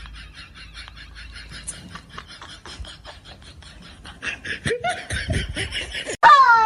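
A person laughing in quick, repeated bursts, then a loud, falling-pitched cry near the end.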